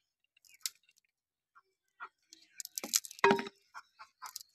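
Sliced onions being dropped by hand into a clay handi pot onto raw mutton: scattered soft rustles and light clicks, busiest in the second half, with one sharper knock that rings briefly about three seconds in.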